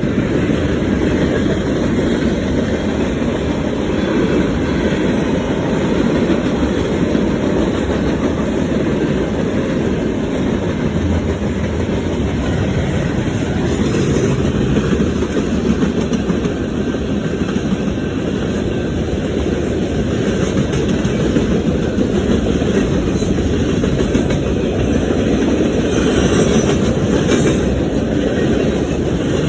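Freight cars of a fast BNSF manifest train rolling past: steady noise of steel wheels on rail, with clickety-clack over the rail joints.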